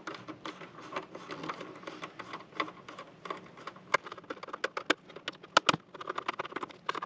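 Screwdriver clicking and scraping as small fasteners are worked out of a plastic gateway housing: irregular light ticks, with a few sharper clicks in the second half.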